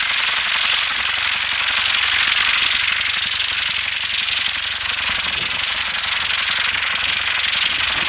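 Rocket engines of the Intora rocket helicopter firing in flight: a loud, steady rushing hiss with a fast rattling edge, swelling slightly about two seconds in.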